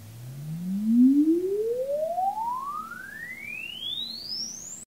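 Room EQ Wizard sine sweep played through a Presonus R65 studio monitor converted to passive, measuring its frequency response with a 1-ohm resistor in series with the tweeter. A single pure tone glides steadily upward from a low bass hum to a high whistle, loudest about a second in, and cuts off suddenly while still rising.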